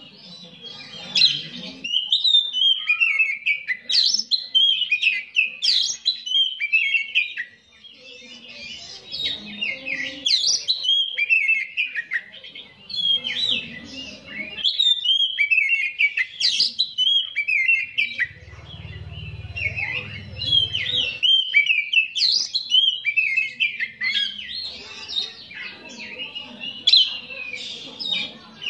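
Caged oriental magpie-robin singing a long, varied song of quick whistled and chirping phrases, almost without a break, with a short pause about seven seconds in.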